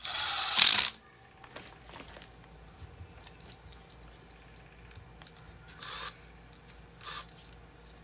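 Cordless impact driver hammering for about a second as it loosens a bolt on a furnace blower motor's mounting arm. Then light clicks of parts being handled and two brief, shorter bursts near the end.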